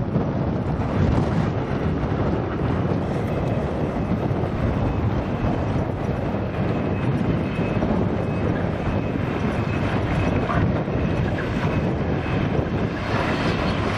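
Wind buffeting the microphone over the steady running of heavy earthmoving machinery: diesel excavators and articulated dump trucks at work.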